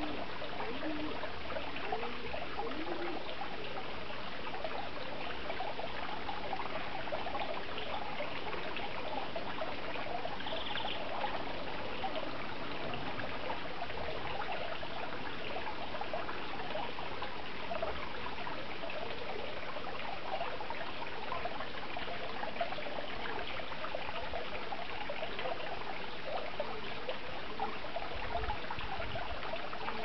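Steady sound of running water.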